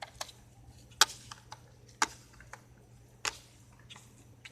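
A handful of sharp clicks, roughly a second apart, the one about a second in the loudest.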